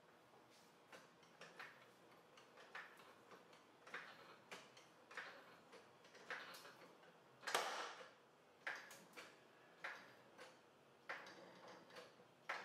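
Floor jack being pumped by its long handle to raise the car, a faint click with each stroke, roughly one and a half a second, with one louder clank about halfway through.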